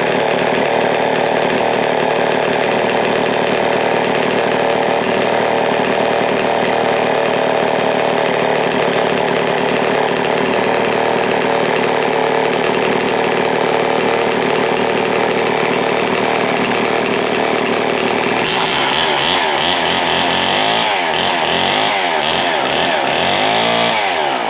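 Homelite Super XP 1130, a 100 cc gear-drive chainsaw, running steadily and loud. About eighteen seconds in, its sound turns brighter and starts to sweep.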